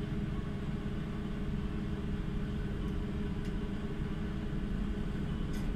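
Steady low hum and rumble of a car ferry's engines running while the ship is under way, heard from on board.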